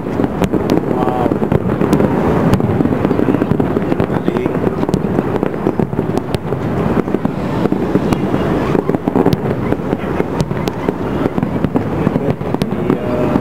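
Fireworks display with aerial shells bursting in close succession: a continuous rumble of booms with many sharp pops and crackles.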